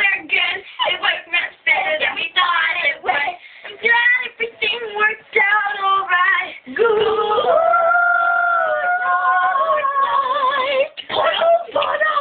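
Young female voice singing in a mock-operatic style: short sung phrases, then a long held note that steps up in pitch about seven seconds in and wavers before breaking off near the end.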